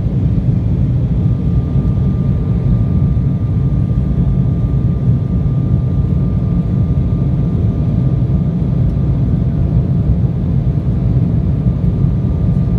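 Cabin noise of a passenger airliner in flight: a steady, loud rumble of engines and airflow, with a faint high whine held on one pitch.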